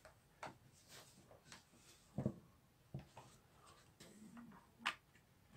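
Faint handling knocks and clicks from a laptop being set down and a USB mouse and its plug being handled, with a sharper click about five seconds in as the plug is connected.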